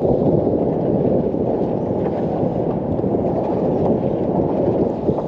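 Wind buffeting the microphone: a steady, dense low rumble with no let-up.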